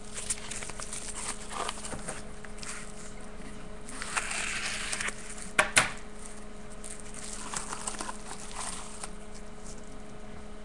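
Paper and plastic rustling as a mailed package of trading cards is opened and the cards unwrapped, with a denser rustle or tear about four seconds in and two sharp clicks just before six seconds. A steady low hum runs underneath.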